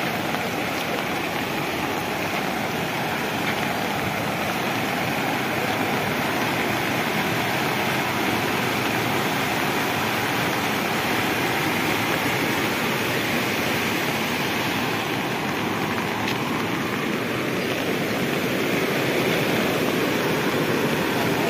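Muddy floodwater of a rain-swollen mountain river rushing over rocks, a steady rushing of water that grows a little louder near the end.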